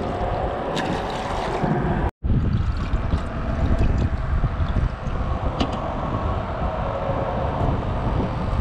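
Wind buffeting the microphone: a steady, gusting low rumble with a few small handling clicks. It cuts out for a moment about two seconds in.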